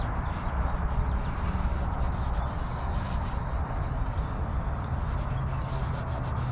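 Gloved fingers rubbing a chemical oxidation-removal wipe over a yellowed plastic headlight lens: a steady rubbing scuff, over a steady low hum.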